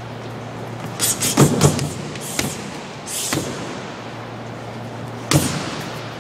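Boxing gloves punching a freestanding heavy bag. A quick flurry of thuds comes between one and two seconds in and is the loudest part. Single hits follow near two and a half and three and a half seconds, and one sharp hit comes about five seconds in, over a steady low hum.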